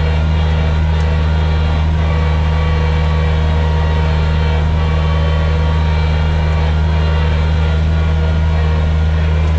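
John Deere 1445 front mower's diesel engine running steadily under load while it drives a front-mounted snow blower through packed snow.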